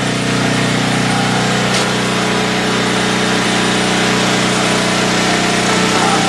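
Portable generator's engine running steadily at a constant speed.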